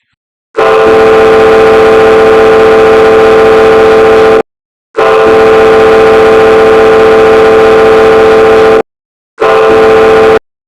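Ship's horn sounding two prolonged blasts of about four seconds each, then one short blast of about a second. This is the narrow-channel signal "I intend to overtake you on your starboard side".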